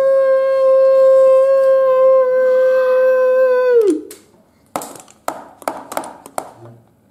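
A person's voice in one long howl, sliding up at its start, then holding a single steady high pitch for about four seconds before dropping off, as a dinosaur call. After it come a few sharp knocks of hard plastic toys on a table.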